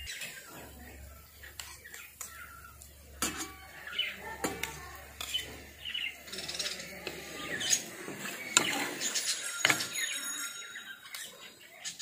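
Metal spatula clinking and scraping on a stainless steel plate while bhaji is spread onto toasted buns, with several sharp knocks. Birds chirp in the background.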